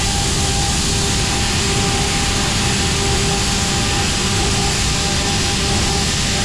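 Heller F6000 machining centre milling metal with a carbide cutter: a steady rushing noise with a constant pitched hum held throughout.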